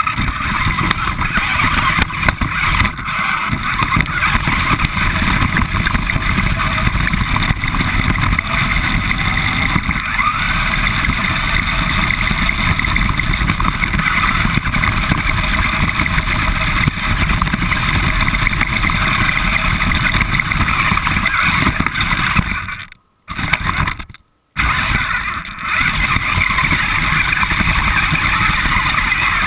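Radio-controlled car driving, with steady motor and tyre noise picked up by a camera mounted on the car itself. The sound cuts out completely twice, briefly, late on.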